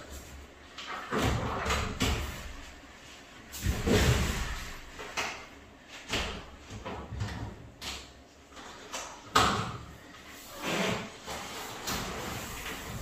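Skin of a giant balloon rubbing, flapping and knocking irregularly around a person moving inside it, in uneven swells with louder surges about a second in, around four seconds and near the end.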